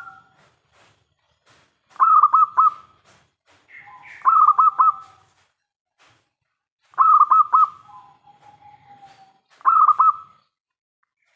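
Local zebra dove (perkutut) cooing its song four times: each phrase a quick run of three or four clipped notes followed by a lower, drawn-out coo.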